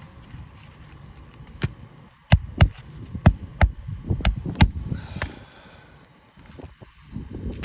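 A run of about eight sharp knocks from about two to five seconds in, in an irregular rhythm, against wind noise: hammer strikes on the roof as shingle nails are worked loose.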